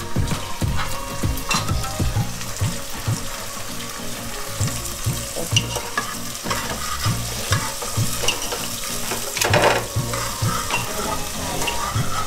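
Vegetable curry sizzling in hot oil in a pan while being stirred, the spoon knocking and scraping against the pan again and again, with one louder knock about three-quarters of the way through.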